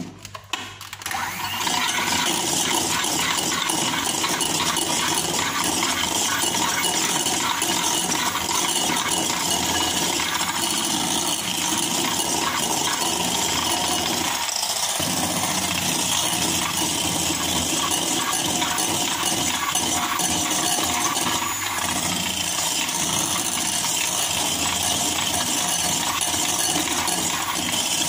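Electric hand mixer switched on about a second in and then running steadily, its metal beaters whirring and rattling in a ceramic bowl as they whip egg and oil into mayonnaise.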